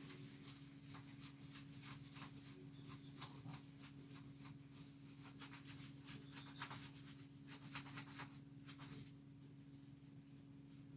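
Faint, irregular rubbing and light scraping as grease is worked onto a metal part by hand, over a low steady hum.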